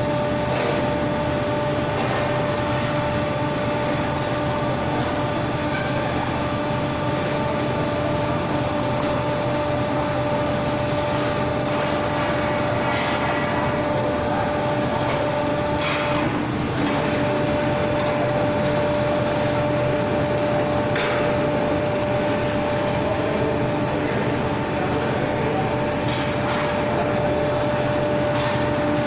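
Industrial machinery at an aluminum billet homogenizing furnace running steadily: a constant drone with a steady mid-pitched whine and a few faint clicks.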